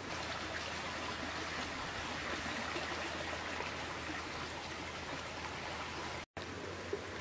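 Steady rush of flowing river water, with a brief dropout about six seconds in.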